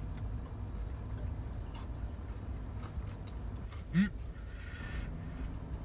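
A man eating ice cream with Oreo chunks and gummy worms: quiet chewing and small mouth and spoon clicks over a steady low hum. About four seconds in comes a short rising vocal 'mm'.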